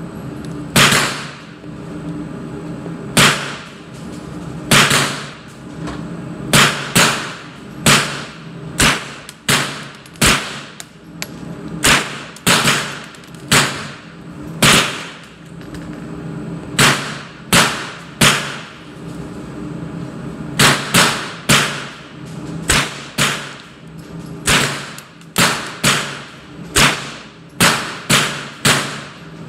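Gunshots on an indoor range, about three dozen at irregular spacing, often several in quick succession, each with a short echo. A steady low hum sits underneath.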